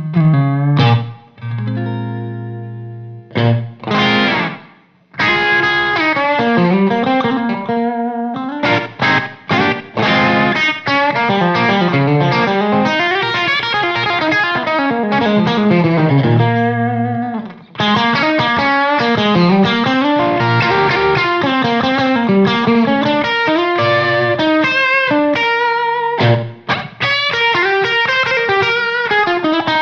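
Electric guitar played through an SSD 90 Fuzz pedal: fuzz-distorted riffs and note runs, with a chord left to ring out near the start and a couple of brief pauses between phrases.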